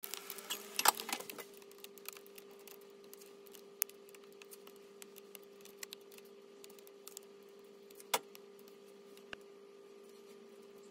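Kitchen clatter from handling cookware: an aluminium pot lid and a knife set down and moved about on a plastic cutting board, busiest in the first second and a half, with single sharp knocks about four and eight seconds in, over a steady hum. The footage runs at four times normal speed, so the handling sounds come quick and clipped.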